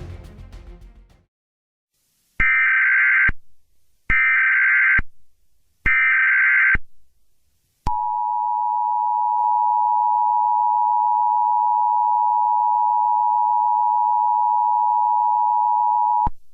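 Background music fading out, then three short bursts of Emergency Alert System SAME header data tones, about a second each, followed by the EAS two-tone attention signal held steadily for about eight seconds before cutting off.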